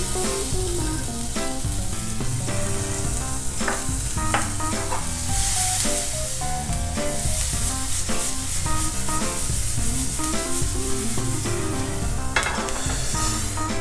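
Chopped onion and garlic frying in hot oil in a pan, sizzling steadily as they are stirred.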